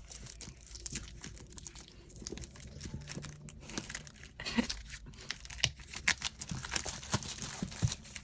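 Crinkling and rustling of album packaging being handled and pulled open, with many small irregular clicks and scrapes.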